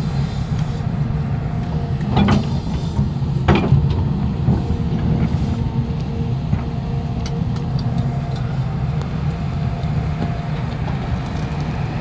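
Steady low rumble of a running vehicle, with two brief knocks about two and three and a half seconds in.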